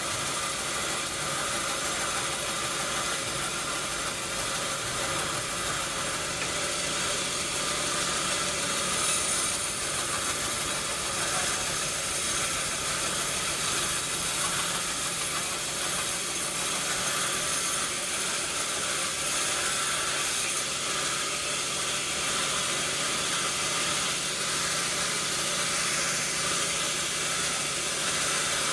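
Sawmill machinery running steadily: a constant mechanical hum with a strong hiss over it.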